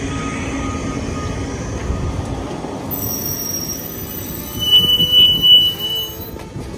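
Articulated city bus pulling in alongside at the stop, with a steady hum and road noise as it rolls past. About four and a half seconds in, a high steady squeal lasts a second or so as it brakes to a halt.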